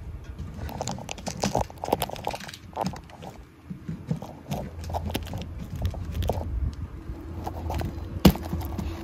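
Irregular knocks, clicks and rustling of things being handled, with one sharp knock near the end. A low steady hum comes in over the second half.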